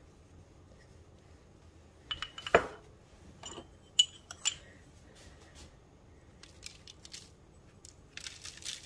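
Kitchen utensil handling: a few sharp ringing clinks and a knock about two seconds in, then single clicks of metal against a hard container. Near the end comes a quick run of small rattling clicks as a metal measuring spoon works everything bagel seasoning.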